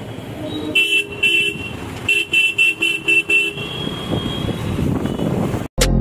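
Road traffic with vehicle horns honking: two short honks about a second in, then a quick string of about six beeps, and a fainter long toot near the end. All of this sits over the steady hum of traffic, and the sound cuts off abruptly just before the end.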